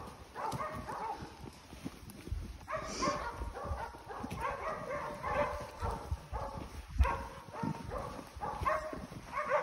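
Hunting dogs barking repeatedly in short calls, with footsteps and low thumps on a dirt trail under them.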